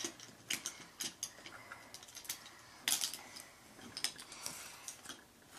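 Plastic Lego pieces clicking and rattling as a built Lego truck is handled and its parts moved, in irregular sharp clicks with a denser cluster about halfway through.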